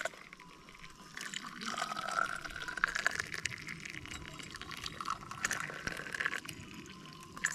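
Tea being poured into a glass, the pouring sound rising gently in pitch as the glass fills, with small clinks and rustles around it.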